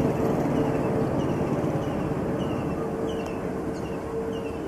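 Distant rumble of an Airbus A330-900neo's Rolls-Royce Trent 7000 engines during the landing rollout, with a steady whine, slowly fading. Short high chirps repeat over it about twice a second.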